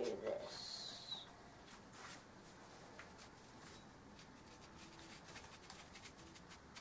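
Faint scattered clicks and light scraping as a rifle cleaning rod is handled at the rifle's barrel.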